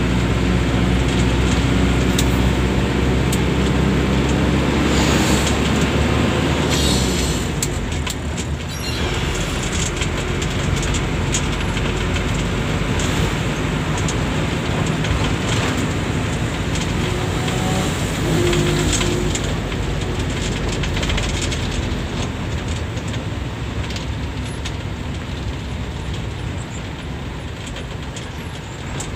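Bus engine running under steady road noise, heard from inside the moving bus. The strong engine drone eases off about seven seconds in, then carries on more quietly.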